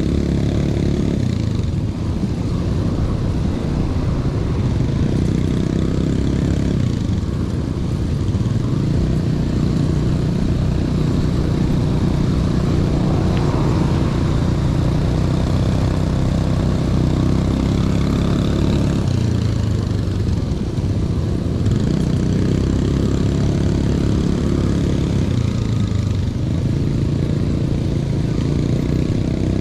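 Motor vehicle engine running under way, its pitch shifting slowly up and down several times as it speeds up and slows, with road noise.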